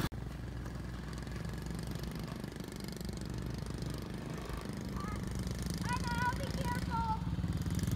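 Small engine of a youth quad running steadily, a low drone that grows slowly louder toward the end.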